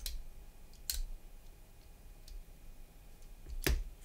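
Hobby knife cutting notches into small plastic kit parts: three sharp clicks as the blade snaps through the plastic, one at the start, one about a second in and the loudest near the end.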